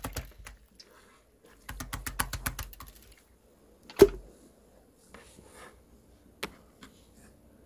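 Clear pink glitter slime worked by hand, giving irregular runs of small crackling clicks and pops, densest about two seconds in, with one sharp loud pop about four seconds in.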